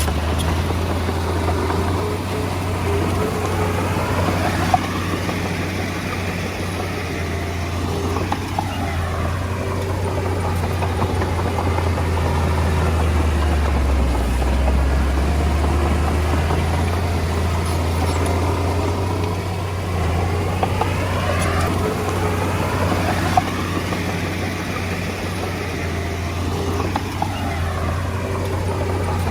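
Diesel engine of a Komatsu D20A bulldozer running steadily under work, with a deep, constant hum and a few sharp clanks.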